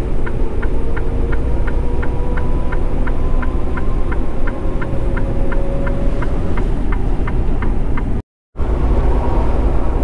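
Steady low rumble of engine and road noise heard inside a semi-truck's cab on a snow-covered highway, with a faint steady whine. A light, regular ticking, about three or four ticks a second, runs over it and fades out about seven seconds in; the sound cuts out completely for a moment near the end.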